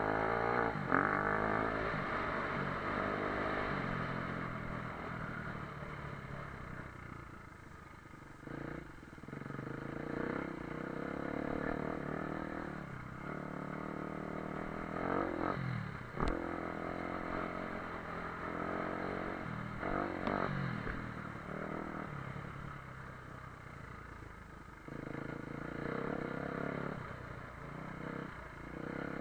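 Off-road motorcycle engine revving up and down repeatedly, its pitch rising and falling over and over, with a single sharp click a little past the middle.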